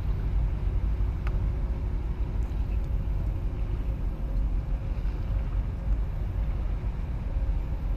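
Low, steady rumble of a large container ship's engine as it passes close, mixed with wind buffeting the microphone; a faint steady hum runs through it.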